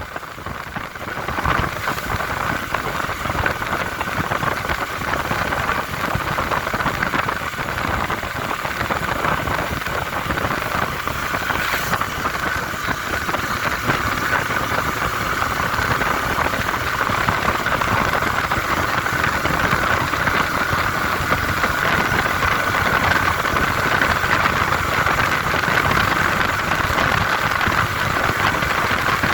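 TVS Apache 160R's single-cylinder engine running steadily while the motorcycle is being ridden.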